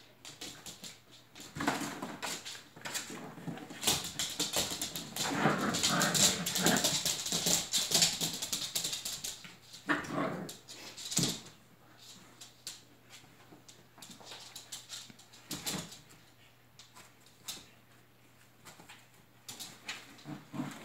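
Icelandic Sheepdog puppies whimpering and yipping as they play, over scuffling and rustling from their scrambling. The noise is busiest in the first half and loudest a few seconds in, then thins to scattered scuffs.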